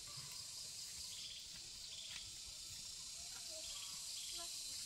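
Outdoor ambience of a steady, high-pitched insect chorus, with short repeated trills and a few faint bird chirps.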